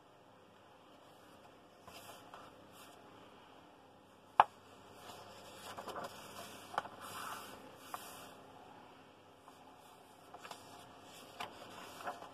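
Paper pages of a paperback colouring book being turned and smoothed flat by hand, with soft rustling and sliding of paper and a few small clicks. One sharp tap about four seconds in is the loudest sound.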